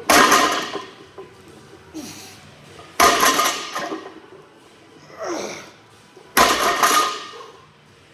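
Loaded deadlift barbell with heavy weight plates, 390 lb, coming down on a lifting platform three times about three seconds apart. Each rep lands with a heavy metallic clank and a brief rattle of the plates.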